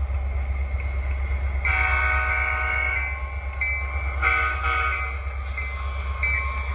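Model diesel locomotive's sound-decoder horn blowing over a steady low hum. A longer chord comes about two seconds in and a shorter one near the middle, with shorter single-note toots between and after.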